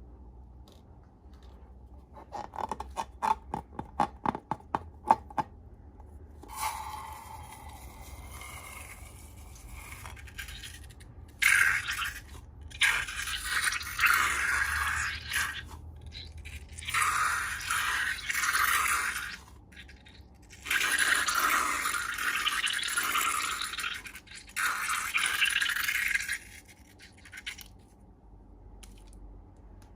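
Slime and balloons being handled: a quick run of sharp clicks and snaps, then several long bouts of hissy scraping, each lasting a few seconds with short pauses between.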